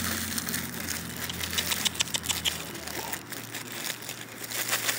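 Crinkling packaging in short crackly bursts, over a steady low mechanical hum.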